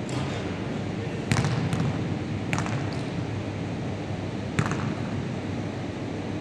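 Basketballs bouncing on a wooden gym floor and striking the backboard and rim: about five irregular sharp thuds that echo in the hall, over steady background noise.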